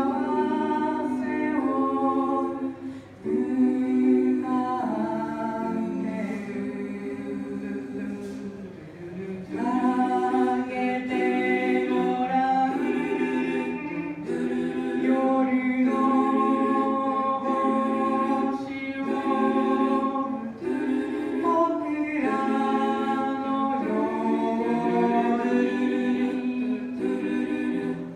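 Five-voice a cappella group singing in close harmony into microphones, holding chords phrase by phrase, with short breaks between phrases about 3 and 9 seconds in.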